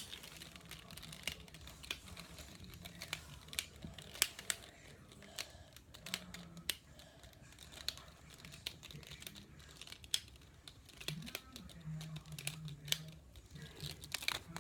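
Plastic snake-cube puzzles being twisted and handled: irregular light clicks and taps as the segments turn and knock together.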